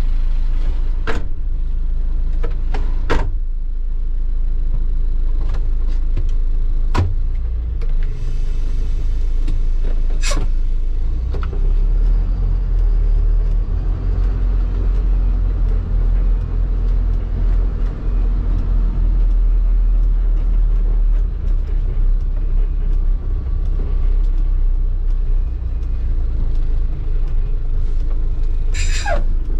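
New THACO truck's engine running while the truck is driven, heard from inside the cab as a steady low rumble. Several sharp knocks and rattles sound over it in the first ten seconds, and a brief falling squeal comes near the end.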